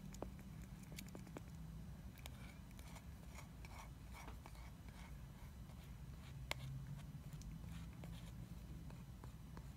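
Screwdriver stirring two-part epoxy in a plastic pill bottle: faint scraping with scattered light clicks as the blade knocks against the plastic.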